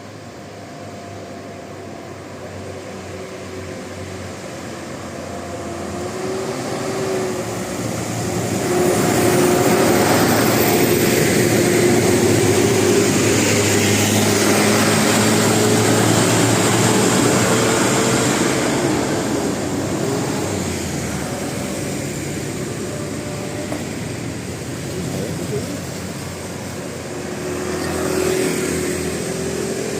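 Large buses driving past on a road, their engine and tyre noise swelling to a peak about ten seconds in, holding for several seconds, then fading, with a shorter swell near the end as another vehicle passes.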